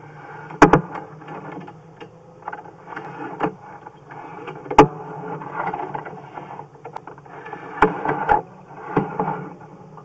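Sewer inspection camera push cable being worked back and forth: irregular scraping and rattling with sharp knocks, the loudest about half a second in and near five seconds, over a steady low hum.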